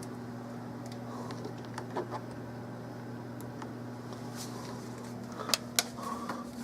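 A steady low electrical hum, with a few faint clicks and taps about two seconds in and again near the end.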